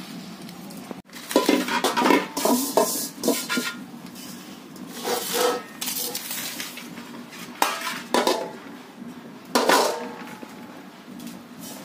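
Stainless steel plates, bowl and sieve clattering and scraping against each other, with short ringing clinks in several bunches. The busiest run comes in the first few seconds, and there are single knocks later on.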